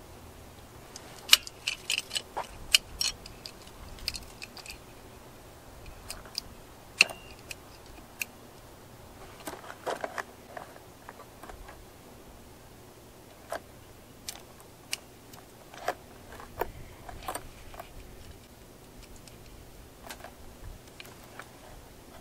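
Saw chain being handled and taken apart by hand: scattered, irregular small metallic clicks and clinks of the links and tools, with a few sharper ticks and short clusters.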